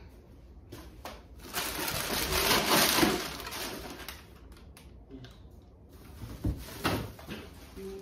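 Thin plastic grocery bags rustling and crinkling as food is stuffed into them, loudest for a couple of seconds near the start, followed by a couple of light knocks from items being handled.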